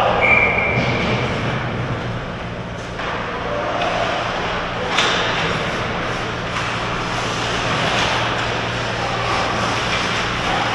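Ice hockey play in an arena: skates scraping on the ice and sticks clacking, with a couple of sharp knocks, the loudest about five seconds in, over a steady low hum. A brief high steady tone sounds near the start.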